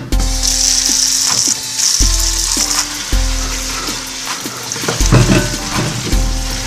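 Kitchen faucet sprayer running water over Brussels sprouts in a plastic salad spinner basket: a steady hiss of spray, loudest in the first three seconds. A hip-hop music loop with a bass note about once a second plays underneath.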